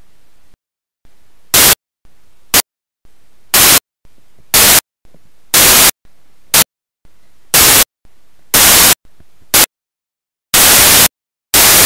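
Corrupted camera audio: loud blasts of hissing static about once a second, each cut off into dead silence or a faint background hiss, running together into unbroken static near the end.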